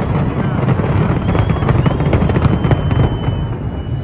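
A dense barrage of fireworks going off, with rapid bangs and crackling over a low rumble. A high steady whistle joins about a second in, and the barrage eases slightly near the end.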